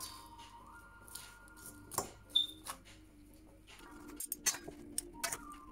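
Metal salad servers clinking and scraping against a stainless steel bowl as a salad is tossed, with a few sharp clinks, the loudest about two seconds in and several more near the end.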